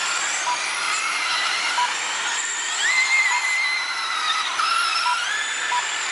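Several radio-controlled dirt oval late model cars running, their electric motors whining high and overlapping, each pitch sliding up and down as the cars accelerate down the straights and slow into the turns. Short beeps repeat every second or so.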